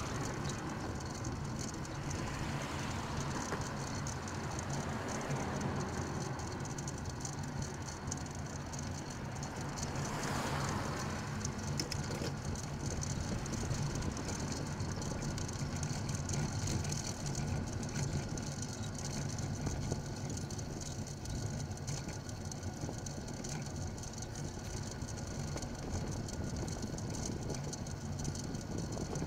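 Steady road and wind noise picked up by a bike-mounted camera's microphone while riding beside fast motor traffic. Passing cars swell up and fade, most clearly near the start and again about ten seconds in.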